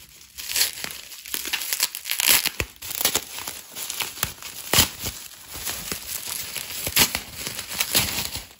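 Plastic bubble wrap crinkling and rustling as it is unwrapped by hand from a small item, with irregular sharper crackles; the loudest come about a quarter of the way in, halfway and near the end.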